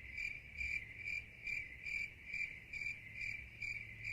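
Cricket chirping at a steady, even rate, a little over two chirps a second.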